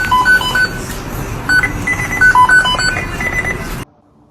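Music made of short beep-like electronic notes hopping between several pitches over a rumbling background, cutting off suddenly near the end.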